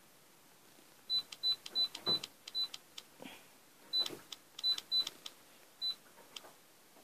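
Touchscreen key-press beeps: about ten short, high-pitched electronic beeps, all at one pitch, each with a faint tap, as the zoom button is pressed repeatedly. They come in an uneven run, with a short pause partway through.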